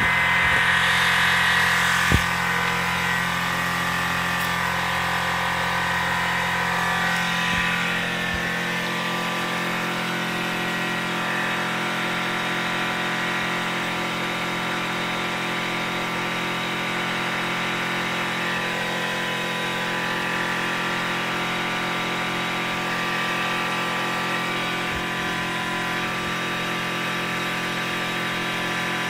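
Compressed air blowing steadily through a blow-off nozzle: a continuous hiss with steady tones in it, with a sharp click about two seconds in and the sound settling slightly quieter around eight seconds in.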